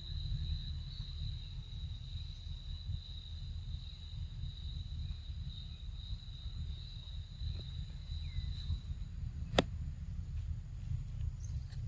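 Outdoor forest ambience: a steady low rumble on the microphone under faint, steady, high insect calls, the lower of which stops about nine seconds in. A single sharp click about nine and a half seconds in.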